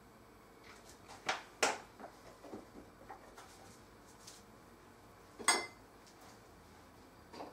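Kitchen handling noises: two sharp knocks a little over a second in, a few small clicks, and a louder clatter about five and a half seconds in, as containers and utensils are set down and picked up on the counter.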